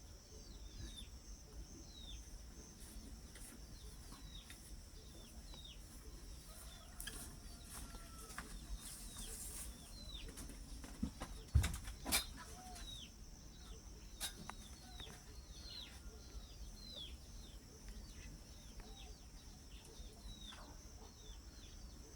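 Birds chirping: a long series of short, high, downward-sliding chirps, a few at a time, over a steady high-pitched hum. A sharp knock and a click come about halfway through.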